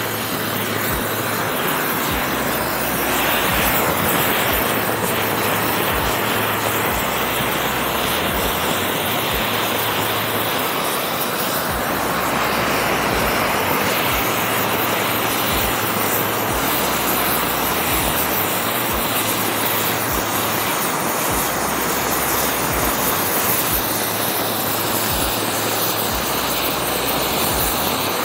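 Oxy-fuel cutting torch flame burning steadily on a large steel pipe, a continuous even hiss as it burns the pipe's coating off ahead of the cut.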